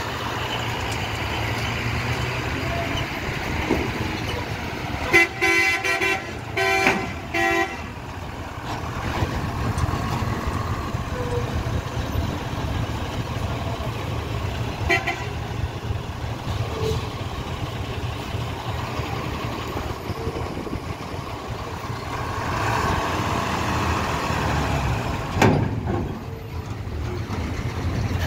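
Heavy trucks' engines running at low speed as they cross onto a ferry pontoon, with a vehicle horn honking in about four short blasts around five seconds in and once more briefly around halfway.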